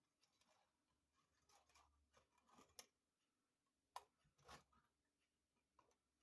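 Faint scraping and clicking of a hand screwdriver turning a screw into a ceiling electrical box, with a few sharper clicks near the middle.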